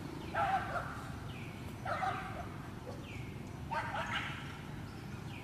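A dog barking three times, about one and a half to two seconds apart.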